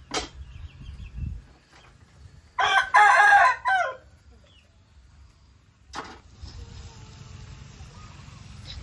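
A rooster crowing once, a loud call lasting just over a second, about two and a half seconds in.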